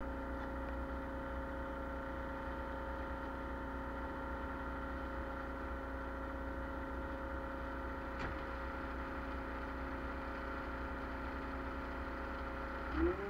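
Ponsse Elk forwarder's diesel engine idling steadily while the machine stands still, with one brief click about eight seconds in. Near the end, the engine note begins to rise.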